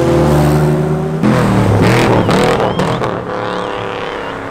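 Performance car engines accelerating away, the exhaust revving up and down in pitch. The sound changes abruptly about a second in, from a steady engine note to another car revving hard.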